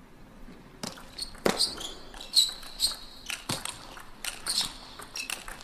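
Table tennis rally: the ball clicking sharply off the players' bats and the table in a quick back-and-forth, a hit about every half second to second.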